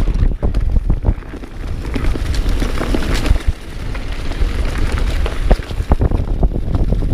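Wind buffeting the microphone of a chest-mounted action camera on a mountain bike riding fast downhill on a dirt trail, over the rush of tyres on dirt and leaves, with many sharp knocks and rattles from the bike over rough ground.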